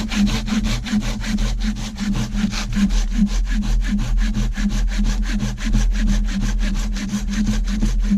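Silky Gomboy folding hand saw cutting through a dead log in rapid, even back-and-forth strokes.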